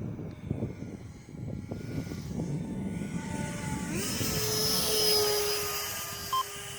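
Electric ducted-fan motor of a Freewing F/A-18 RC jet whining as it flies past; the pitch rises about three seconds in, the whine and rushing hiss grow loudest around five seconds, then ease off. Wind buffets the microphone throughout.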